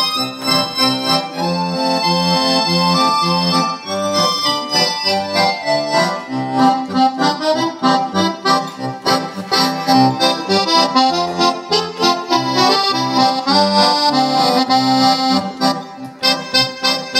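Piano accordion playing a tune over a pulsing bass-and-chord accompaniment in a steady rhythm, with a brief dip near the end.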